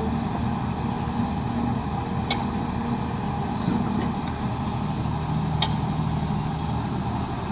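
A heavy machine's engine running steadily at a low idle-like hum, with two short clicks.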